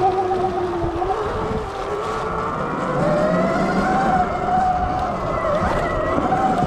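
Sur Ron Light Bee X electric dirt bike riding a trail, its motor and drivetrain whine dipping about two seconds in, then climbing and holding higher as it speeds up. Underneath is a rough rumble with small knocks from the bike and the wind.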